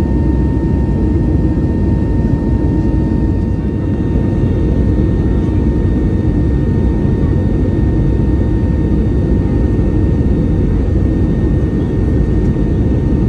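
Steady cabin noise of an Airbus A321neo with its jet engines running: a loud, even rumble with a few faint steady high tones over it.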